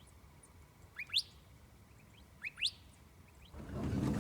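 A small bird chirping twice, each time a quick pair of short rising notes, about a second and a half apart. Near the end a louder rustling noise starts up.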